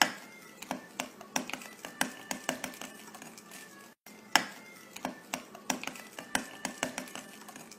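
A spoon clinking and scraping against a bowl while a cream dressing is stirred: irregular clinks a few times a second, with sharper knocks at the start and a little past halfway.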